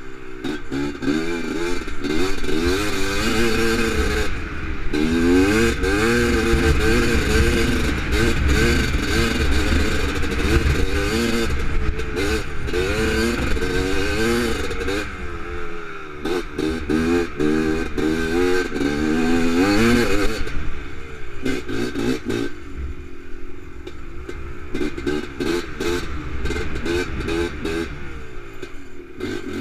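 Honda TRX250R quad's two-stroke single-cylinder engine under way, revving up and dropping back over and over as it is accelerated and backed off. It eases to a lower, steadier note for most of the last third.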